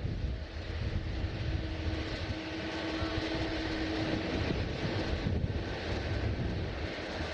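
Passenger jet's engines running: a continuous rumble with a steady hum, and gusts of wind on the microphone.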